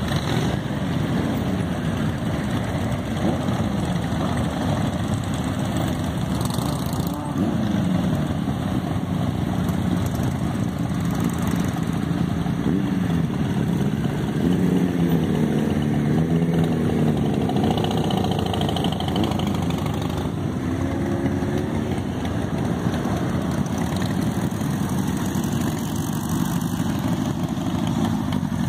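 A procession of motorcycles riding past one after another: cruisers, a sidecar outfit and trikes. Their engines run continuously, and their pitch rises and falls as riders open the throttle, most clearly about halfway through.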